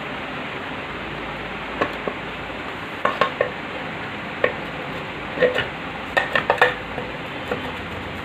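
Scattered metallic clicks and light knocks, some in quick runs of two or three, over a steady background hiss: metal parts being handled as an Enfield engine's side case cover is fitted into place.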